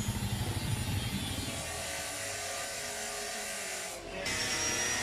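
Yamaha XSR 155's single-cylinder engine idling through its stock exhaust, an even low pulsing that stops about a second and a half in. A steadier, quieter hum is left after it.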